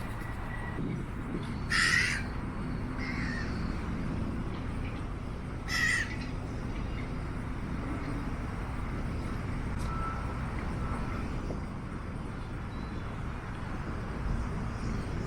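A crow cawing twice, a few seconds apart, over a steady low rumble of city background noise.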